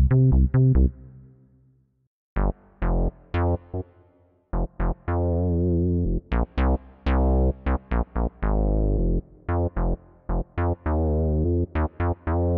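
Yamaha MX88 keyboard playing a synth preset: short, sharp-attack notes and chords in a rhythmic pattern. The playing stops about a second in and starts again a little over two seconds in.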